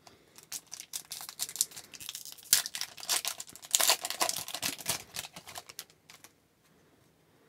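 Hockey trading cards being flicked through by hand: quick crisp clicks and slides of card stock against card stock, stopping about six seconds in.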